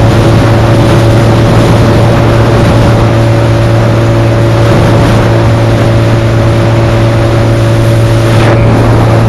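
Heavy wind noise buffeting the camera microphone over a Suzuki Hayabusa's inline-four engine running steadily at cruising speed.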